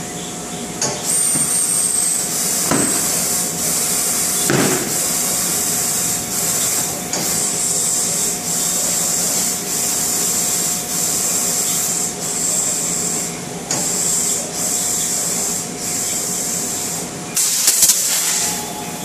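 Compressed air hissing into a car tire on a rim-clamp tire changer, in a string of roughly one-second blasts with short breaks between them, and a louder burst of air near the end.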